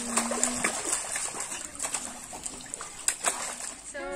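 Water splashing irregularly in an inflatable paddling pool as children kick and play in it.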